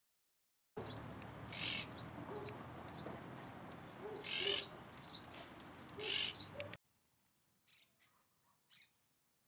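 Birds calling: three loud, harsh, hissing screech-like calls with a few shorter calls between them over a hissy background. The sound cuts in abruptly just under a second in and the background drops away suddenly near seven seconds, leaving a couple of faint calls.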